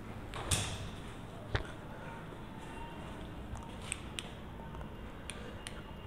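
Quiet room background with two short knocks, about half a second and a second and a half in, then a few faint clicks.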